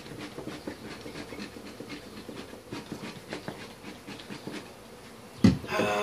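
Rustling and faint crackling clicks while a metal bee smoker is handled and loaded, then a sharp thump near the end as the smoker is set down on the floor, followed by a short sound that slides down in pitch.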